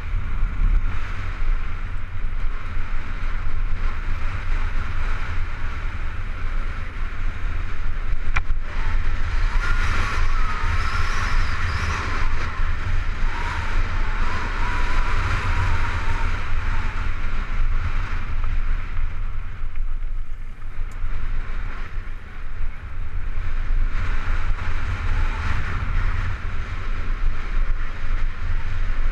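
Cannondale Super V900 mountain bike rolling fast downhill on a gravel fire road: wind buffeting the camera microphone, with the tyres crunching over the loose stones and the bike rattling. There is a single sharp click about eight seconds in.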